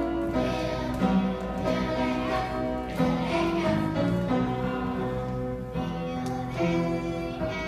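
A live piano plays a song tune while children sing. A steady low electrical hum runs underneath.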